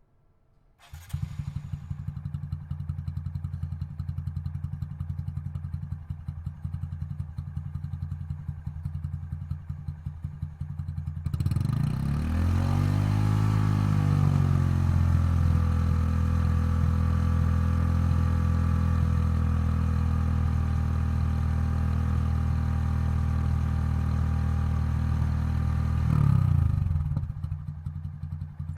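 Honda Monkey's single-cylinder four-stroke engine breathing through a Yoshimura Straight Cyclone full exhaust system. It starts about a second in and idles with an even pulsing beat. About eleven seconds in it gets louder, gives one rev that rises and falls, and settles into a steady idle, with another short blip near the end.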